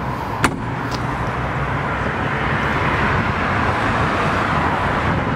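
A motor vehicle's engine and road noise, steady and swelling around the middle before easing off, with one sharp click about half a second in.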